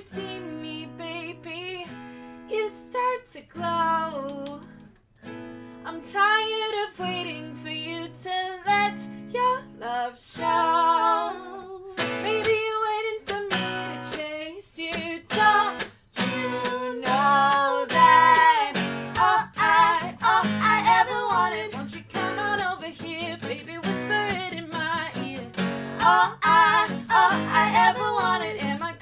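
Acoustic guitar strummed under women singing, the voices wavering in pitch. The strumming gets busier about halfway through.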